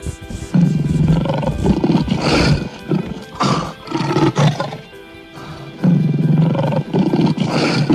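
African lion roaring: a series of deep roars and grunts starting about half a second in, with a second bout of roaring about six seconds in.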